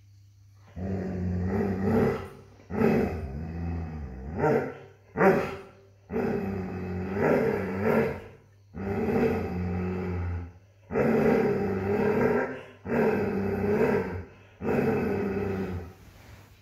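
Doberman growling at its own reflection in a mirror, which it takes for an intruding dog: a series of long growls, each a second or two, broken by short gaps, with two short barks about four to five seconds in.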